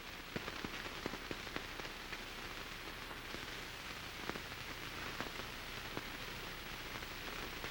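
Steady hiss and crackle of an early optical film soundtrack, with scattered small clicks and pops.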